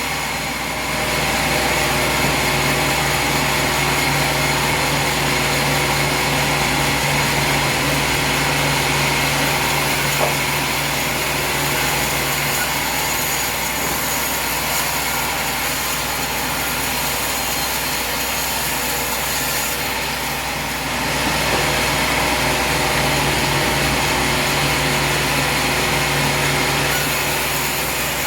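Sawmill running steadily, the saw working through wood over a continuous machine hum, with a brief dip about twenty seconds in.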